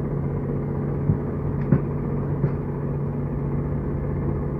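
Steady low machine hum, with a few light knocks and clicks from a metal floodlight housing being handled between about one and two and a half seconds in.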